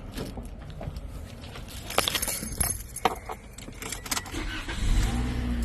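Car keys jangling with scattered clicks and knocks as the car is switched back on. About four and a half seconds in, a low steady hum comes in: the 2017 Toyota Corolla starting up.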